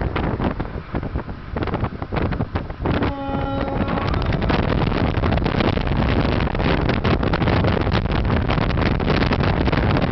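Wind buffeting the microphone in a moving car, loud and gusty with a heavy rumble. A short steady tone sounds about three seconds in.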